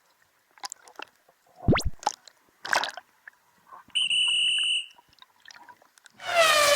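A string of edited-in sound effects: watery splashes and plops, a quick upward swoosh about two seconds in, a steady electronic beep lasting under a second about four seconds in, and a ringing chime that starts near the end and fades.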